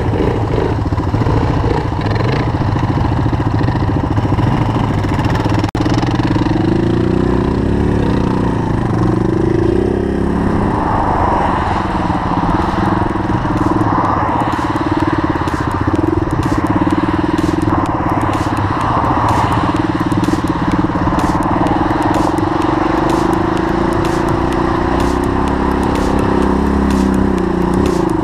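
Single-cylinder Suzuki DR dual-sport motorcycle engine running while being ridden on a dirt trail, the revs rising and falling a few times, with frequent crackling from about a third of the way in.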